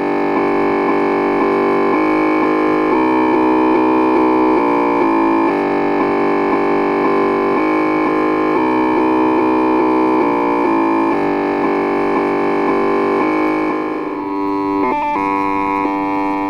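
LEO (Lyons Electronic Office) computer sound effect: a continuous, buzzy run of electronic tones stepping rapidly from one pitch to another. About three-quarters of the way through it briefly dips and shifts to a different, sparser pattern.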